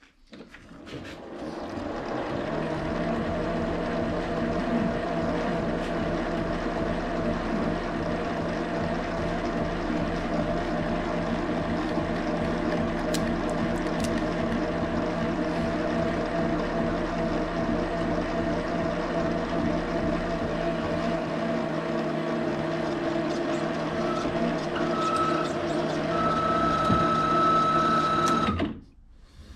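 Metal lathe spinning up and running steadily while a half-inch reamer is fed into a bronze distributor gear's bore, a steady mechanical whine of motor and gearing. A thin high tone joins in the last few seconds before the lathe shuts off suddenly near the end.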